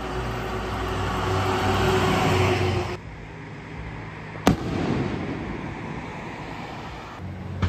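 A steady rushing noise with a low hum cuts off about three seconds in. A little past halfway an aerial firework shell bursts with a single loud bang, followed by a rolling rumble that dies away.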